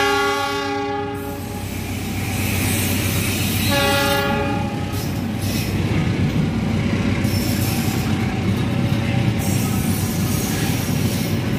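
Diesel locomotive horn sounding a steady chord that stops about a second and a half in, then a second blast about four seconds in, while a long train of passenger coaches runs past with a steady rumble of wheels on rails.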